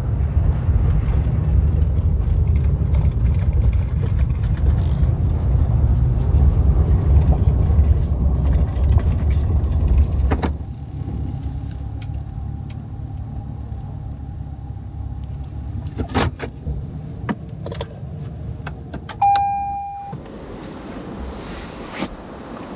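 Pickup truck engine running, then switched off about ten seconds in. A few clicks and one short electronic beep follow.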